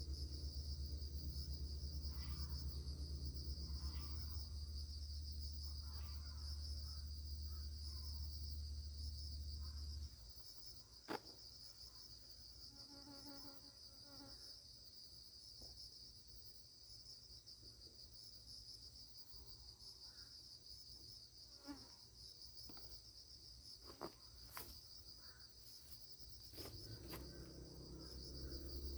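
Steady high-pitched insect chorus, a fast pulsing trill that runs without a break. A low rumble underneath stops about ten seconds in, and a few sharp clicks come and go.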